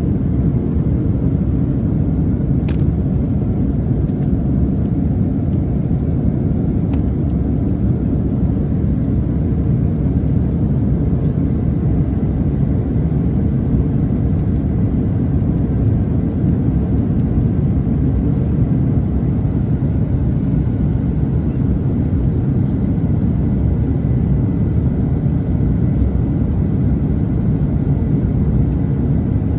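Steady low rumble of an airliner cabin in flight, from engine and airflow noise.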